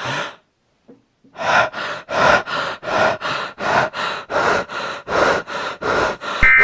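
A person panting heavily and quickly, about three breaths a second, after one short gasp: out of breath and overheated. Just before the end a steady high electronic tone starts.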